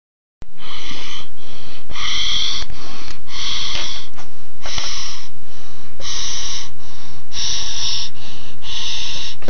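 A person breathing or hissing right into the microphone, loud and overloaded, in a quick run of breathy pulses about twice a second, starting just after a moment of dead silence.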